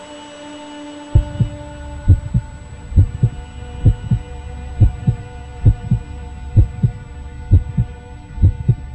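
Heartbeat sound effect: paired low thumps, lub-dub, a little under one a second, over a steady low hum and held higher tones. The heartbeat starts about a second in, after a few seconds of held tones alone.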